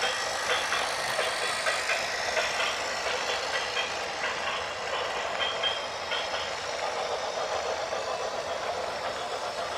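Heavy machine or vehicle rattling and clanking, with many short metallic knocks over the first six seconds, then a steadier mechanical hum.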